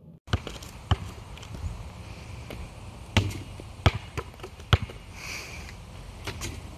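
A basketball bouncing on an asphalt court: a string of sharp thuds at irregular intervals, the loudest between about three and five seconds in, over a steady outdoor background.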